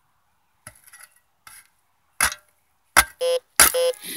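A metal shovel tapping a frozen clump of soil to break a buried rifle casing loose: three sharp strikes in the second half. Between the strikes come two short, steady electronic beeps.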